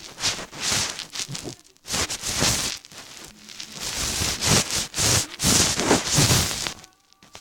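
Irregular rustling and crackling noise in uneven bursts, dropping away near the end.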